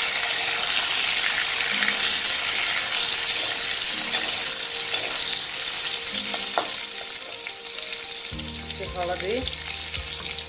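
Pointed gourd pieces frying in hot oil with cumin and mustard seeds in a kadai. The oil sizzles steadily while a metal spatula stirs them, and the sizzle eases off after about seven seconds.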